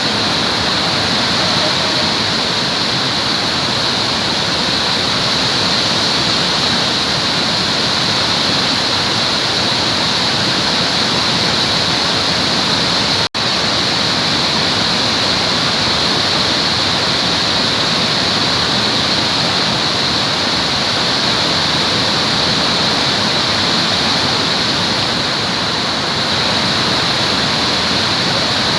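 Waterfall: a steady, unbroken rush of falling water, with one momentary dropout about halfway through.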